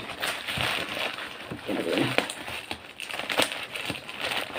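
Plastic courier mailer bag crinkling and rustling as hands grip and scrunch it, with several sharp crackles.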